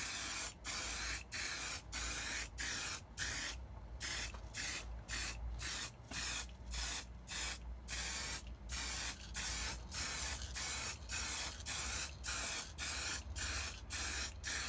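Aerosol spray-paint can hissing in short repeated bursts, about two a second, as paint is applied in quick strokes.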